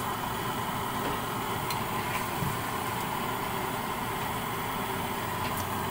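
Steady rushing noise of cooking on the stove, with a few faint light clicks of a metal spatula against the wok as tofu and vegetables in thick sauce are stirred.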